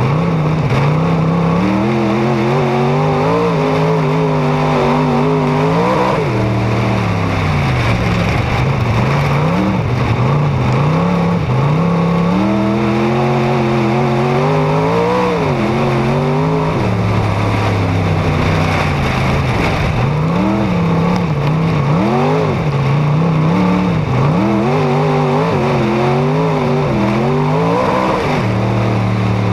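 Dirt-track race car engine at racing speed, picked up from the car's roof: it winds up along the straights and drops back going into the turns, several times over, over steady wind and tyre noise.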